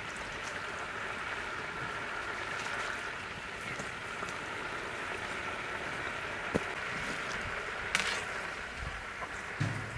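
Large wok of liquid boiling, a steady bubbling hiss, while whole eggplants and green peppers are lifted out with a wire strainer. A short sharp click comes a little past halfway, and another brief sharp sound comes near the end.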